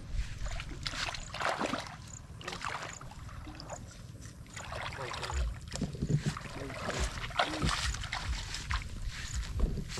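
Bare feet wading through a shallow muddy puddle, with a slosh and splash of water at each step, repeated unevenly throughout.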